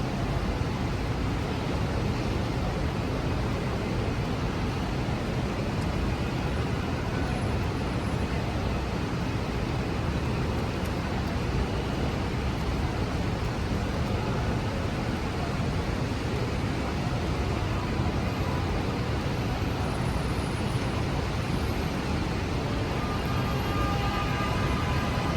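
Steady city street traffic on rain-wet roads: a continuous rumble and hiss of passing cars and buses. A faint engine whine creeps in near the end.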